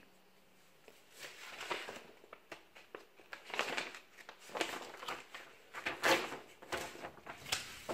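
Sheets of scrapbook paper and card being handled on a wooden table: rustling and sliding as they are bent and smoothed by hand, in irregular swishes with a few light taps, starting about a second in.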